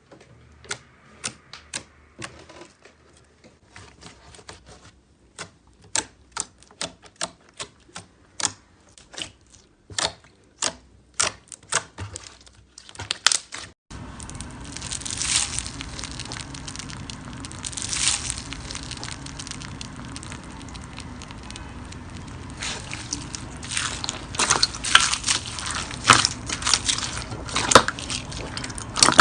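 Slime being pressed and poked, giving sharp clicking pops about one or two a second. About halfway through it cuts to a steady crackle with denser, sharper pops.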